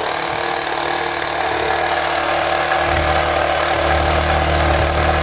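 Small single-cylinder engine of a mini tiller running steadily on its newly replaced carburetor, just after being started. Its note gets fuller and heavier about three seconds in.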